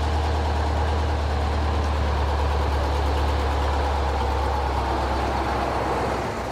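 Heavy military fuel tanker truck's engine running with a steady low drone as it drives slowly past, easing off slightly near the end.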